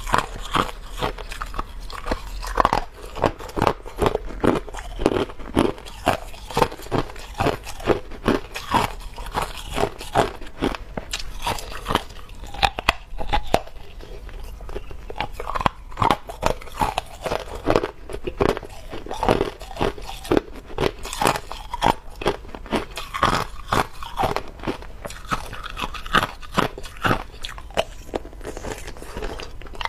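Clear hard ice being bitten and chewed close to a lapel microphone: a continuous run of sharp, cracking crunches, a few each second.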